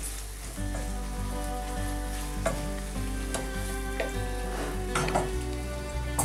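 Spinach sautéing in melted butter in a frying pan, sizzling steadily while a wooden spoon stirs it, with a few sharper scrapes and knocks of the spoon against the pan. Quiet background music underneath.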